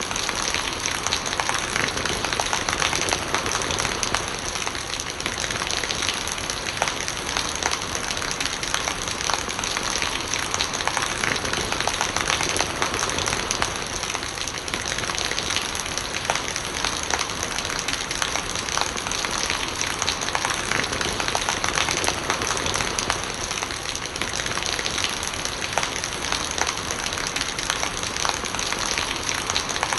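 Steady rain falling, with dense drops ticking on surfaces and rainwater gurgling as it runs.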